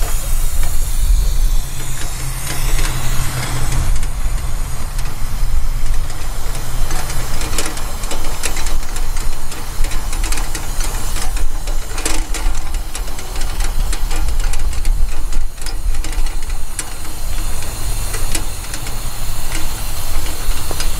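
An aerosol paint can spraying in a steady hiss from a wheeled field line-marking machine as it is pushed over grass, with scattered clicks and rattles from the cart. A steady low rumble runs underneath.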